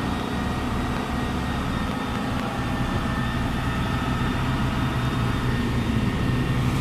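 MaxxForce 7 V8 diesel in an International school bus running steadily while parked, during a forced DPF regeneration.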